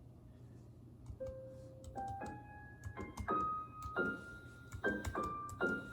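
Synthesised piano notes played one at a time at varying pitches by a web app that turns typed text into jazz-style music. About ten notes begin about a second in, each held until the next starts.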